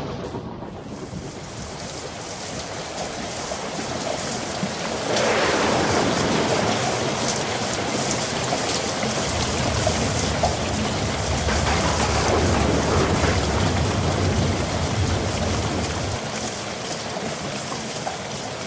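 Steady rain, with a low thunder rumble rolling through the middle part.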